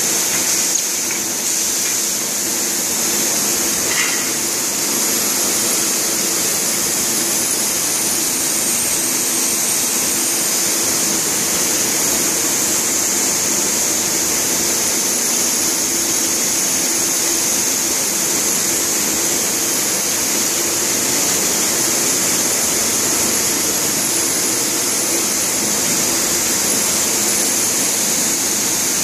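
Steady mechanical hum and hiss of a Jakob Müller RAM 500 tape measuring and rolling machine running in a textile factory, with a faint high whistle wavering above it and a single click about four seconds in.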